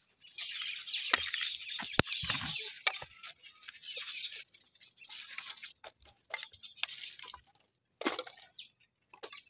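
Dry sticks and twigs rustling, scraping and snapping as they are handled and stacked on a stone hearth to lay a fire. The rustling is heaviest in the first few seconds, with a sharp snap about two seconds in, then sparser rustles and ticks and a short rustle near the end.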